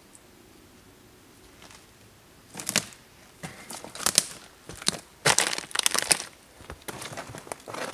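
Footsteps crunching through dry twigs and leaf litter on a forest floor, a run of irregular crackling steps starting between two and three seconds in.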